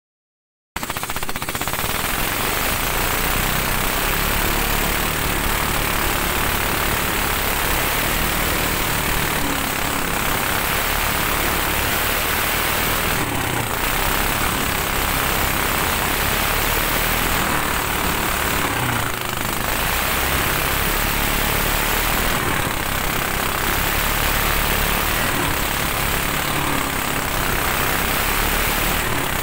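Engine of a small fibreglass 'trứng vịt' speedboat running steadily at speed, driving the boat through water hyacinth. The sound cuts in under a second in.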